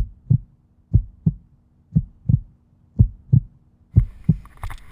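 Heartbeat sound effect: paired low thumps, one pair about every second. About four seconds in, music with higher sounds comes in over them as the track builds.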